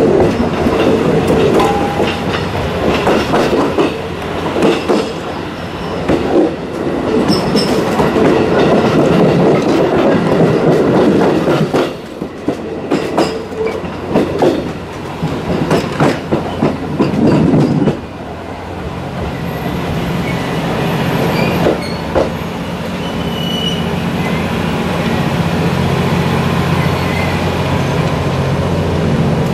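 Passenger coach wheels clattering over jointed rail and switch points, heard from an open rear observation deck, with a short squeal at the very start. After about eighteen seconds the clatter stops and a quieter, steady low hum remains.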